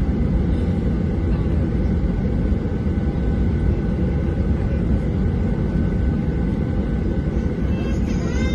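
Boeing 737-800's CFM56 turbofan engines running at takeoff power, heard from inside the cabin as a steady, loud rumble with a thin steady whine above it. Near the end a wavering, gliding higher-pitched sound begins.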